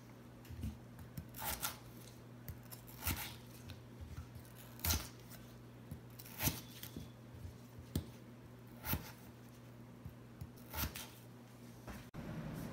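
Chef's knife slicing through raw peeled potato and striking a plastic cutting board, about eight separate cuts, one every second or two, over a faint steady hum.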